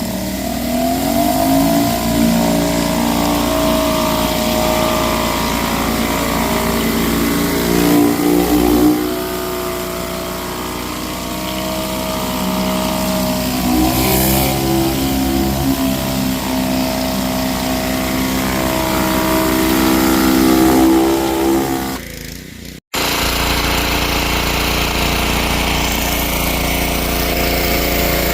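Gas pressure washer engine running with a surface cleaner spraying the deck: a steady engine drone over hissing water spray, its pitch wavering slowly up and down as the load changes. About 23 seconds in the sound breaks off for an instant and comes back as a steadier drone.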